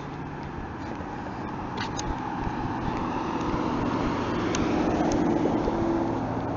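Road traffic: a car passing on the road, its engine and tyre noise swelling to its loudest about five seconds in, then starting to fade.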